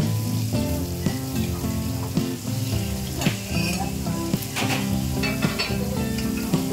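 An egg omelette sizzling in a hot pan, with a metal spatula scraping and tapping as it is turned and lifted out, over background music.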